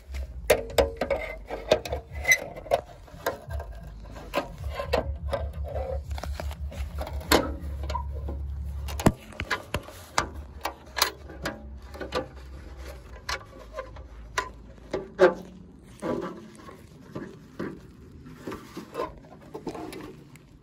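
Handling noise from unboxing a street lantern: an irregular string of clicks, knocks and rubbing as parts and packaging are moved about. A low rumble runs under the first half and cuts off suddenly about nine seconds in.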